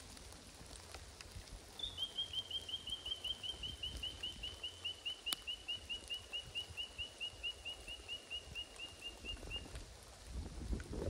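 A bird calling a long, even series of short whistled notes, about five a second, for some eight seconds, the pitch sinking slightly toward the end. A steady hiss of light rain lies underneath, with one sharp click about five seconds in.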